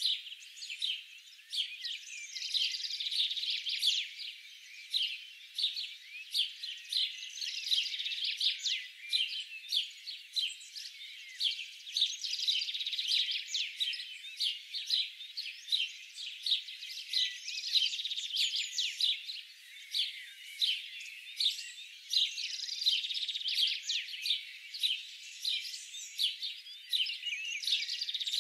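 Chorus of small birds chirping and calling over one another in quick, high-pitched notes, with no low sounds beneath them.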